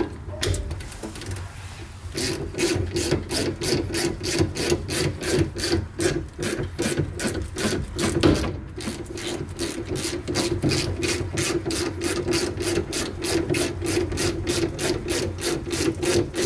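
Socket ratchet wrench working back and forth on a strut top nut, a steady rasping ratchet rhythm, tightening the nut to draw a Suzuki Carry's front strut rod up through its mount. It starts about two seconds in and keeps a quick, even beat.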